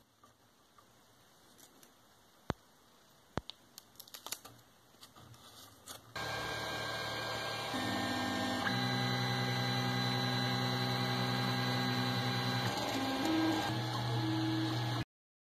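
A few sharp clicks as the plotter head is fitted onto the 3D printer's carriage. About six seconds in, the 3D printer starts running: a steady mechanical hum with whining stepper-motor tones that shift in pitch several times as the head moves, cutting off suddenly near the end.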